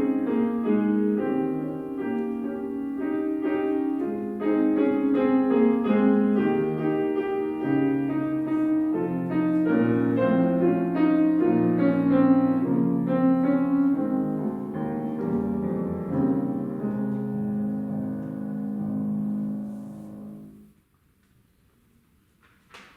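Solo piano piece, played in a steady run of notes, closing on a held chord that dies away. It is followed by a couple of seconds of near silence and a faint knock at the very end.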